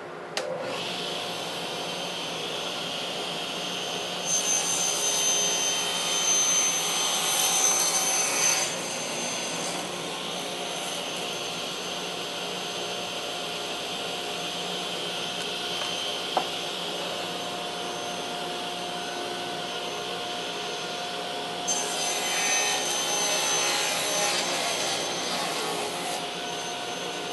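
Table saw running steadily. Twice its blade cuts through a board pushed on a crosscut sled: a harsher, louder cutting sound from about 4 to 9 seconds and again from about 22 to 26 seconds.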